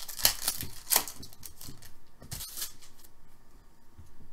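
Hockey card pack being torn open by hand: the wrapper crinkles and tears in a quick run of crackles, then the cards rustle as they are slid out and handled. The crinkling is busiest in the first three seconds and thins out near the end.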